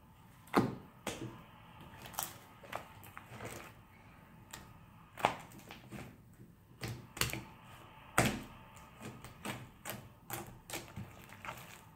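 A large mass of homemade glue slime being stretched, slapped and pressed by hand on a wooden tabletop: an irregular run of sharp slaps and clicks. The loudest come about half a second in, around five seconds and around eight seconds.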